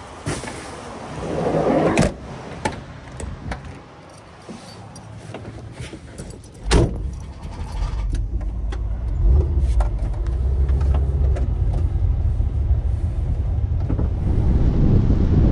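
Volkswagen Westfalia camper van being loaded and started: bags rustling, clicks and keys jangling, and a loud thump about seven seconds in. Then the engine runs with a steady low rumble that grows louder as the van pulls away.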